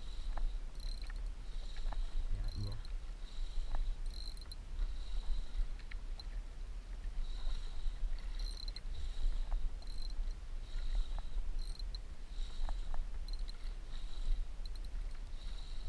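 Wind buffeting the microphone as a steady low rumble, with short high-pitched chirring bursts recurring every second or so and a few faint clicks.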